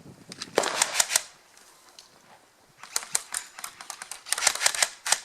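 Airsoft replicas firing: sharp clacking shots, a quick run of about half a dozen shortly after the start, then a lull, then longer rapid strings of shots from about three seconds in.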